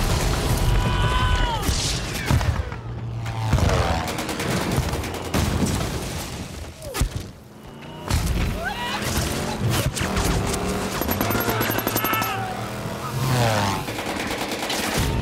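Film battle sound effects over music: explosions and bursts of gunfire, with whistling tones that slide up and down in pitch. The din drops away briefly about seven seconds in, then comes back loud.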